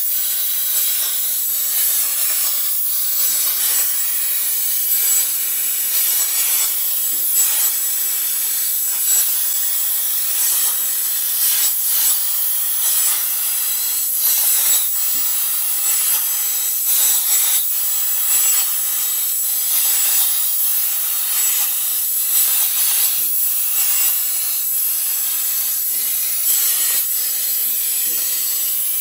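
CNC plasma cutting torch cutting steel plate: a steady, hard hiss with constant crackling, over a thin high steady tone.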